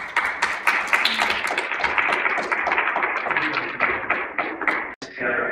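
A crowd applauding: dense, irregular hand claps that cut off suddenly about five seconds in.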